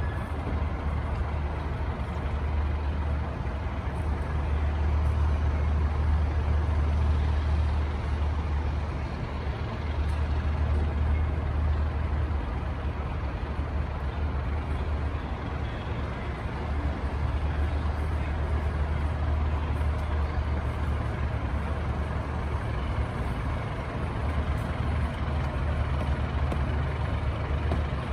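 Scania fire truck's diesel engine idling with a steady low rumble, swelling slightly a few times as it edges forward.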